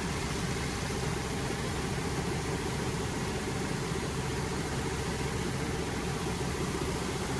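Wheat pouring steadily from an overhead hopper spout into a steel tipping trailer, an even rushing hiss, with an engine running in the background.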